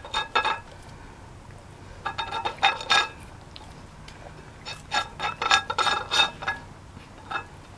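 Old English Sheepdog licking a small plate clean, the plate clinking and scraping on concrete as it is pushed about, in several short bursts of rattling clicks.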